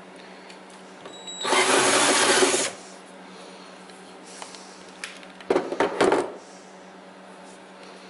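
Cordless drill spinning a step drill bit through a plastic console panel, enlarging the hole. Two bursts of drilling, about a second long and then a shorter one, with the cutting stopping in between.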